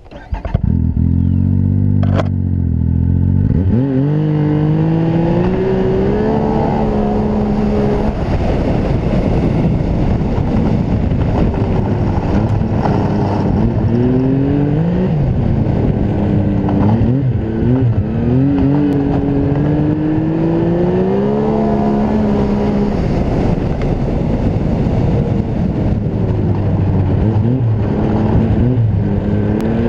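Turbocharged Yamaha 998 cc three-cylinder snowmobile engine breathing through a Turbo Dynamics aftermarket exhaust. It runs low and steady for a few seconds, then is revved and accelerated again and again, its pitch rising and falling several times.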